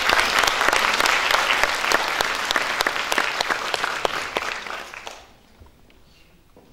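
Audience applauding, a dense round of clapping that dies away about five seconds in.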